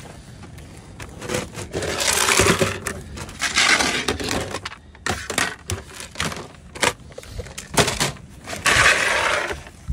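Rummaging through dumpster finds: a plastic bag crinkling in a few loud spells, with small objects clicking and clattering against clear plastic storage tubs in between.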